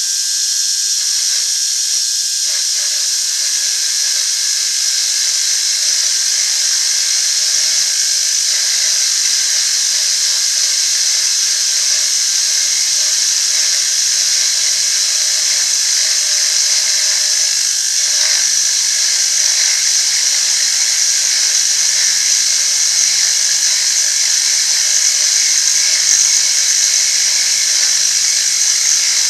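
A tool grinder running steadily with a continuous high-pitched grinding hiss as a cutting-tool insert is touched up on it, with a faint low motor hum coming in about seven seconds in.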